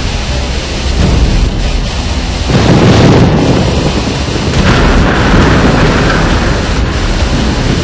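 Loud storm noise: a rough, continuous rumble that swells sharply about two and a half seconds in and again near five seconds.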